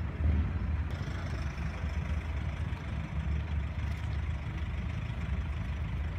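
McLaren 675LT's twin-turbocharged 3.8-litre V8 idling steadily with a low rumble.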